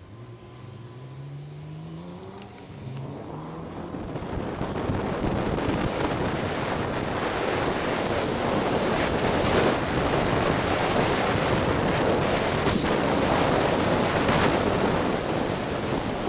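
Wind rushing over a bike-mounted camera's microphone, with tyre and traffic noise, building up over the first few seconds as the bicycle gathers speed and then staying loud.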